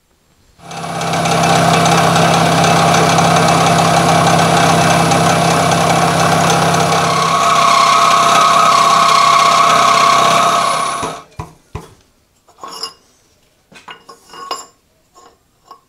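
Vertical milling machine with an end mill cutting along the edge of a metal channel to square it up: a loud, steady cutting noise with a ringing tone, starting about half a second in, shifting in pitch about seven seconds in, and stopping about eleven seconds in. A few light knocks and clicks follow as the part is handled.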